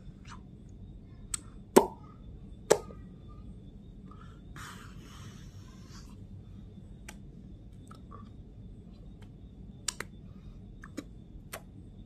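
Scattered sharp clicks and knocks, the two loudest about two and three seconds in, with a short breathy hiss around the middle, over a low steady hum.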